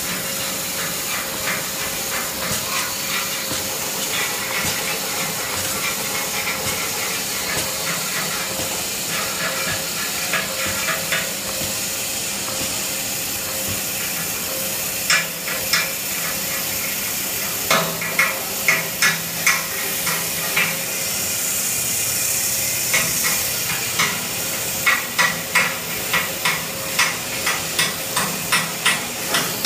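Manual band saw for cutting toilet-paper logs, running with a steady noise as its blade cuts through the tissue log. From about halfway there are short sharp knocks, coming about twice a second near the end.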